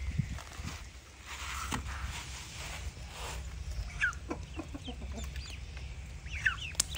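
Chickens clucking: short falling calls, a few about four seconds in and a quick cluster near the end, over a low steady rumble.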